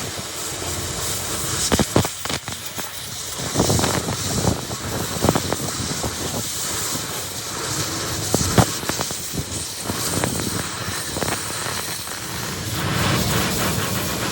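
Workshop work noise: a steady hiss with a handful of sharp knocks, the loudest about eight and a half seconds in.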